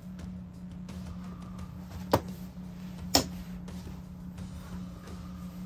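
Two sharp metallic clicks, about a second apart, as starter parts and hand tools are handled on a workbench, over a steady low hum.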